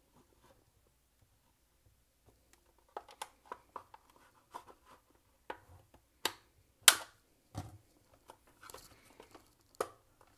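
Light plastic clicks and scraping as a plastic trim pry tool works at the seam and clips of a Nespresso Vertuo's plastic top cover, starting about three seconds in, with one sharp snap near seven seconds in.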